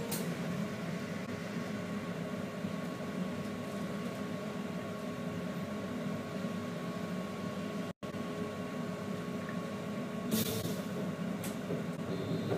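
Steady cabin hum inside a BKM 321 trolleybus, with a thin steady whine. Two short rattles come about ten seconds in, and the sound cuts out for an instant about eight seconds in.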